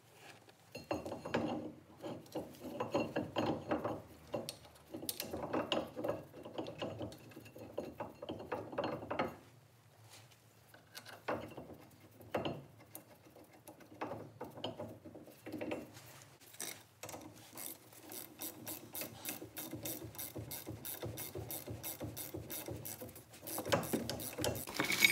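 Bursts of rhythmic scraping strokes on metal as the brake hub is cleaned up, then a socket ratchet clicking steadily, about three clicks a second, as the new front brake caliper's mounting bolts are wound in.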